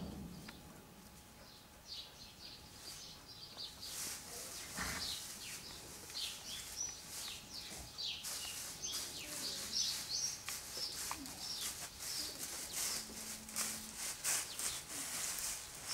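Small birds chirping: many quick, high, downward chirps that start about three seconds in and grow busier, with a single dull thump about five seconds in.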